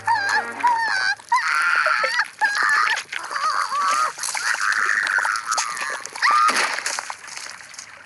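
High-pitched, squeaky cartoon character voices crying out and chattering in short wavering bursts, over a constant rushing noise; the sound fades away near the end.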